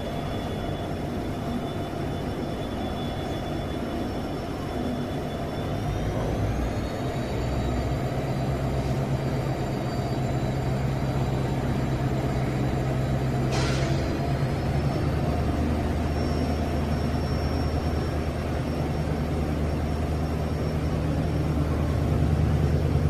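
WDP4D diesel locomotive's EMD two-stroke engine running with a deep hum and a steady high whine. It steps up in load twice, about six seconds in and again near the middle, with the whine rising in pitch each time. A short hiss sounds a little past the middle.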